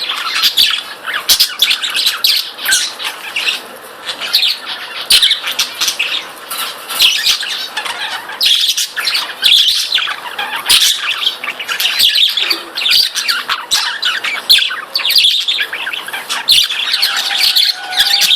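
Several budgerigars chattering and squawking without a break, a dense run of quick, sharp chirps and clicks.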